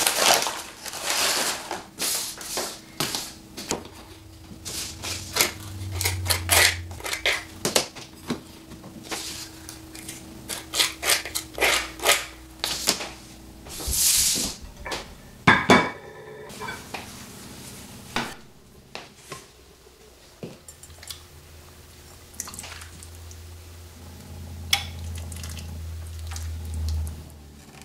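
Kitchen dishes and cutlery clinking and knocking as a plate is set out and served, a dense run of sharp clicks for the first half, then only a few scattered knocks. A low hum comes in for the last few seconds.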